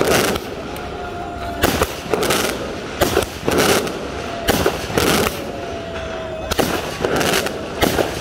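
Handheld fireworks being set off, a string of sharp bangs at irregular spacing, roughly one or two a second.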